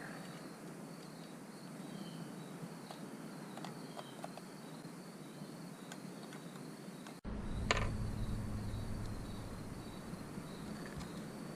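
Steady, evenly repeating high chirping of insects such as crickets, under a few faint clicks of small parts being handled. About seven seconds in a low hum gets louder and a single sharp click sounds.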